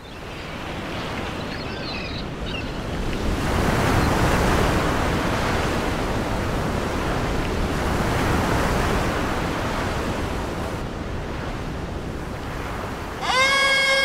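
Sea surf washing in, an even rush that swells and eases over several seconds. Near the end a held pitched tone sets in over the surf, gliding up as it starts.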